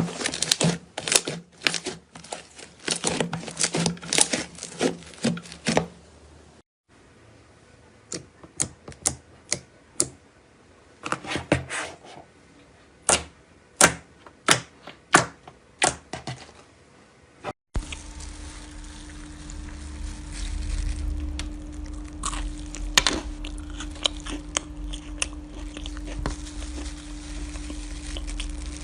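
Slime being squeezed and poked by hand, making quick sticky clicks and pops, dense at first and sparser after a cut. In the last third a steady low hum sits under the scattered clicks.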